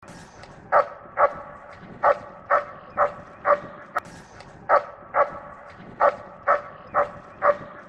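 A dog barking repeatedly: about a dozen short, sharp barks, roughly two a second.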